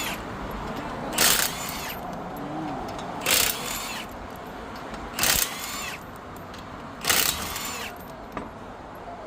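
Hand-tool work on a car wheel during a tyre change: four short squeaking, rasping strokes about two seconds apart, over a steady background hum.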